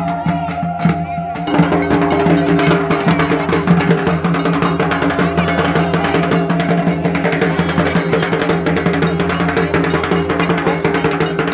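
Dhak drums beaten in a fast, dense rhythm, with a steady held tone beneath them. It gets louder about a second and a half in.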